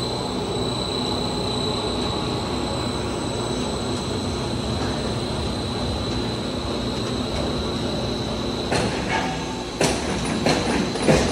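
Factory machinery of a PVC pipe extrusion line running: a steady mechanical rumble with a thin high whine over it. Near the end a few sharp knocks and clatters stand out.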